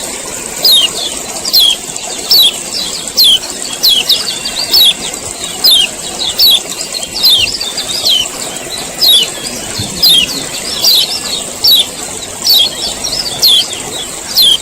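Male kecial kuning, a white-eye, giving its chattering 'ciak ciak' call: sharp, high, falling notes repeated about once a second over a steady hiss. The sound cuts off abruptly at the very end.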